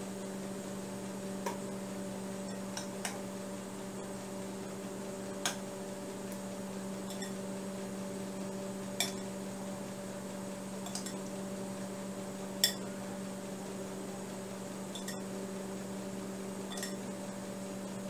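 Scattered light clinks of kitchen utensils against a glass bowl and dishes while chicken wings are basted with sauce, about eight in all, the loudest about two-thirds of the way through. Under them runs a steady electrical hum.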